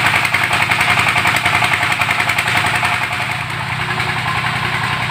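Small diesel engine of a well-drilling rig running steadily with a fast, even beat, driving the rig while drilling cuttings are being lifted from the borehole.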